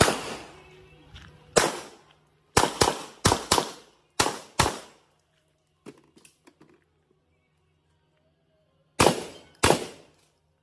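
Gunshots in quick succession from a three-gun run with a pistol-calibre carbine, pistol and shotgun: eight shots in the first five seconds, some in fast pairs, each with a short ringing tail. After a few light clicks, two more shots come about half a second apart near the end.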